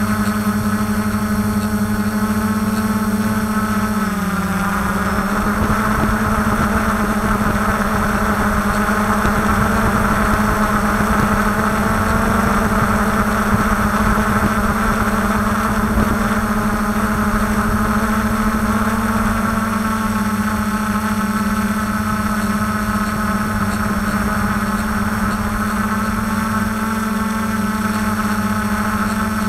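DJI F450 quadcopter's brushless motors and propellers running in a steady hover, close to a camera mounted on the frame. About four seconds in the pitch dips briefly and comes back up.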